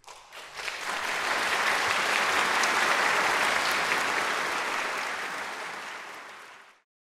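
Audience applauding, building over the first second, easing off slowly, then cut off suddenly near the end.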